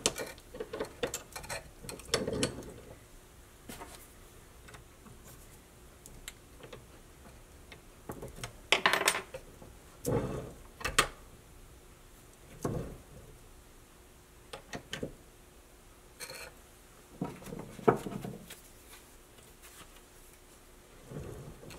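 Scattered clicks and light knocks as metal tooling and a plastic block are handled on a small arbor press while a leather stamp is fitted into the ram. There are a few louder knocks near the middle and again about eighteen seconds in.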